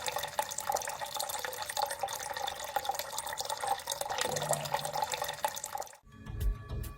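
Water trickling and dripping in a tabletop waterfall lamp, a steady splashy patter of many small drops. About six seconds in the water sound cuts off abruptly and music starts.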